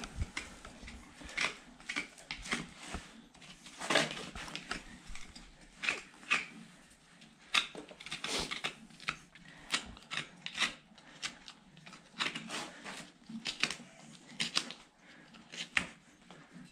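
Horse's hoof horn being scraped and cut by a hand-held trimming tool while the hoof is held up: short, crisp, irregular strokes, about one or two a second, with brief pauses between them.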